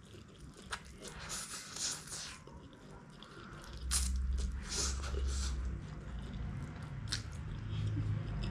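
Close-up wet eating sounds: a mouthful of egg chow mein noodles being sucked in and chewed, with small clicks and squishes. A low rumble joins from about four seconds in.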